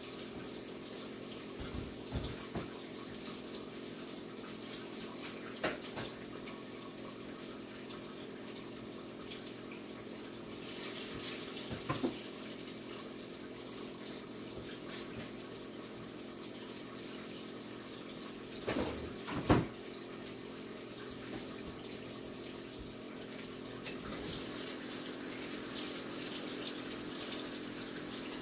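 Steady sizzle of fish frying in an electric deep fryer, over a low steady hum, with a few short knocks and clatters, the loudest a pair about two-thirds of the way through.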